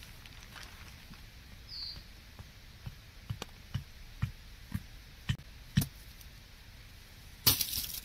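A run of about seven sharp knocks, roughly two a second, getting louder, like something being struck or hammered, then a short, louder rustling crunch near the end.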